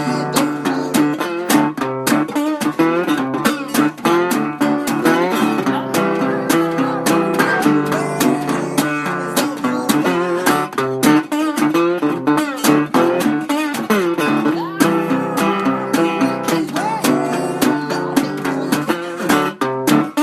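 Acoustic blues guitar played slide style: plucked and strummed notes, some of them gliding up and down in pitch.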